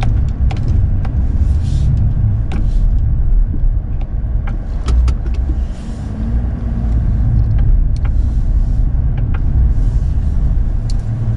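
Snow plow truck's engine running and the cab rumbling while it plows snow, heard from inside the cab, with scattered clicks and knocks.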